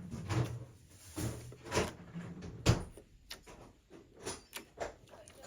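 A series of irregular knocks and clatters, about half a dozen, over a low rumble.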